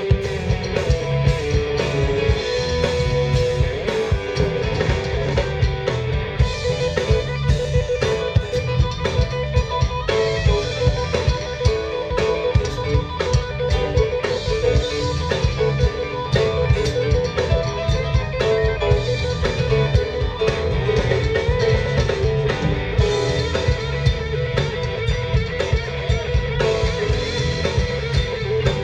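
Live rock band playing an instrumental passage: electric guitar lead lines over a drum kit keeping a steady beat.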